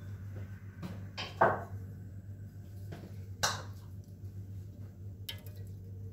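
Kitchen items being handled: a few knocks and clinks, the loudest about a second and a half in and another about three and a half seconds in, over a steady low hum.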